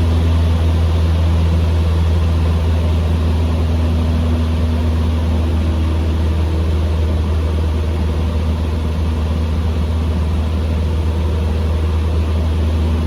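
Cessna 150M's four-cylinder Continental O-200 engine idling steadily: an even low drone with a constant hum above it, on the ground at the runway waiting for takeoff.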